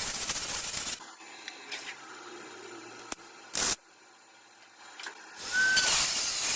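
MIG welder tacking the new steel front panel onto the car body, in bursts of crackling hiss. The first burst lasts about a second, a short one comes at about three and a half seconds, and a longer run starts about five and a half seconds in.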